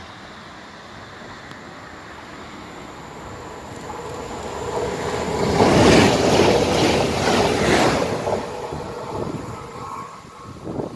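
Electric passenger train passing close by on the track. Its noise builds from about four seconds in, is loudest around six to eight seconds, then fades as the train draws away.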